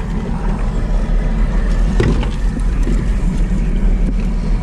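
Steady low rumble of a small boat's engine running, with a few faint clicks from the line and hook being handled.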